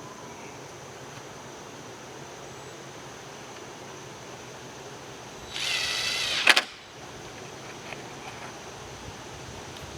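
A power drill runs once, for about a second, with a whine, about five and a half seconds in, ending in a sharp click.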